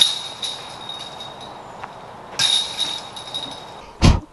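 Disc golf discs striking the hanging chains of a metal basket twice, each a sudden clash followed by jingling chains that ring for about a second and a half, the second about two and a half seconds in. A brief low thump near the end.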